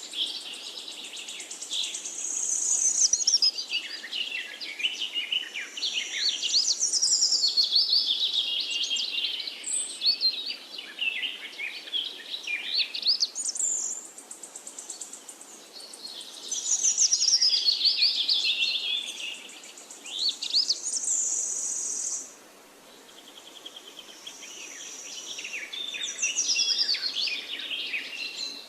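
A chorus of forest songbirds singing, several birds overlapping in quick chirps and trilling phrases, with short pauses and a brief lull a little over two-thirds of the way through.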